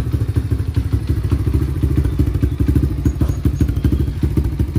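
Pit bike's single-cylinder four-stroke engine idling steadily in a rapid, even beat, warming up so the oil will drain more easily.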